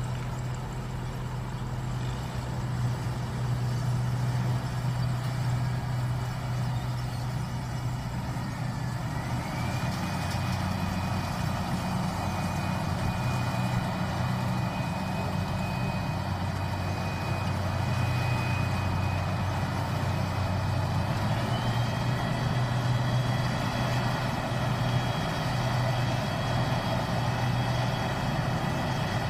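New Holland 8060 combine harvester running steadily while harvesting rice, a deep engine drone throughout. A high whine slides up in pitch about nine seconds in and holds, and a second, higher whine joins a little past twenty seconds.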